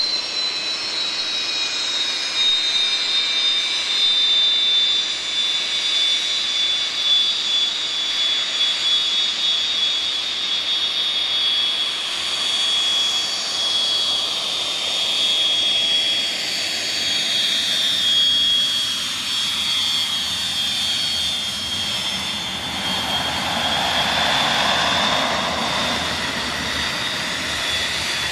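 Hawker Hunter jet fighter's single turbojet whining at taxi power, a shrill high tone that sinks slightly in pitch. A broader roar swells in the last few seconds as the jet draws close and turns past.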